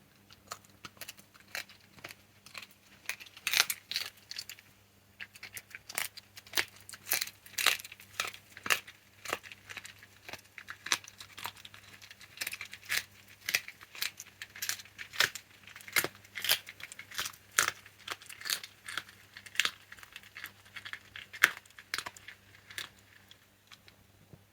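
A fox chewing and crunching chicken wing bones: sharp crunches, often several a second, with short pauses between bouts.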